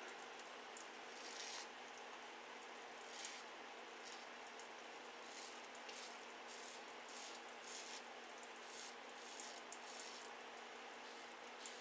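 Turkish shavette fitted with a half blade scraping through lathered stubble on the cheek and jaw: a string of short, faint rasping strokes at an uneven pace.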